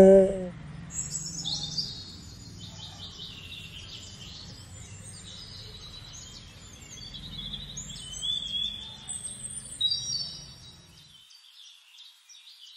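Small birds chirping and twittering, many quick overlapping calls, over a faint low hum; it all cuts off suddenly about eleven seconds in.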